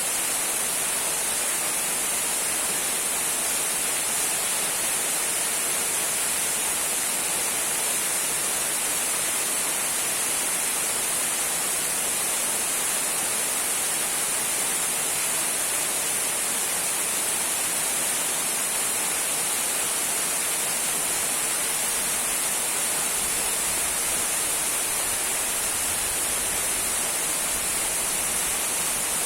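Small trickling waterfall: a steady, even hiss of falling and splashing water, bright and high.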